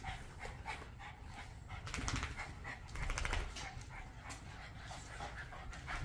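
Boston Terriers panting hard in quick, rhythmic breaths, winded after exercise.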